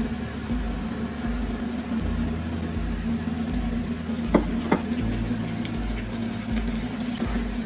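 Breaded chicken pieces deep-frying in hot oil in a small stainless steel pot: a steady bubbling sizzle. Two short clinks come about four and a half seconds in.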